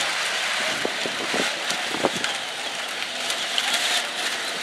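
Electric Power Wheels ride-on toy cars whirring and grinding as they push against each other, with a few plastic knocks from the bumping.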